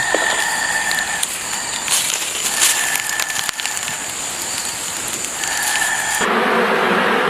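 Scattered crackling and clicks over steady high whistling tones that come and go, then about six seconds in a sudden, louder buzz from a swarm of giant honey bees.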